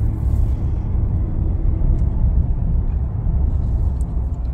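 Steady low road and engine rumble inside a moving car's cabin.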